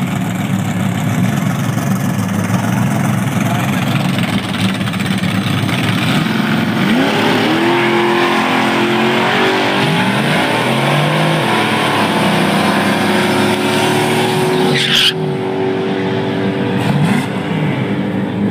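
Turbocharged Fox-body Ford Mustang doing a drag-strip burnout: the engine is held at high revs while the rear tyres spin and squeal on the wet track. The hiss cuts off suddenly about fifteen seconds in and the engine eases off as the car pulls away.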